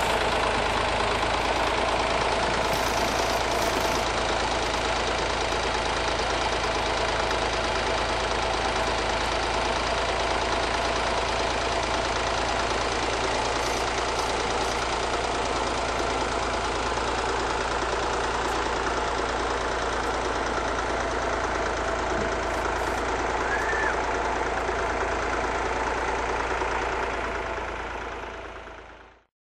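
An engine idling steadily with an even hum, which fades out near the end.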